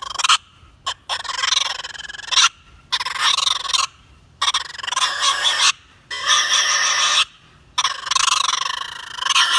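Coon Toonz acrylic double-reed raccoon squaller blown at the high-pitched end of its range, imitating raccoons. It starts with a couple of short chattering notes, then goes into about five long squalls of a second or so each, separated by short breaths, mimicking a raccoon fight. It is played loud.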